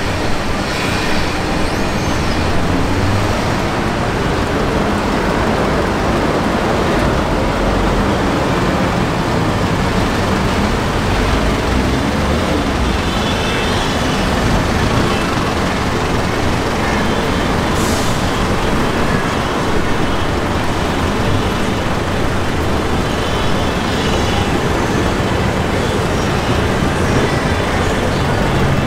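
Steady city street traffic: motor vehicles running and passing, with a brief hiss partway through.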